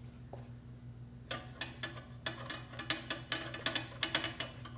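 Metal rods clinking and tapping against a metal ring plate as they are slid through its holes and set in place: a run of light, irregular clicks starting about a second in, over a faint steady hum.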